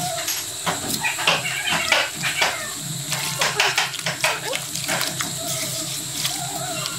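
A hand stirring rice bran into liquid in a plastic bucket, the liquid sloshing and splashing in quick, irregular strokes. A few short pitched animal calls sound at the start and again near the end.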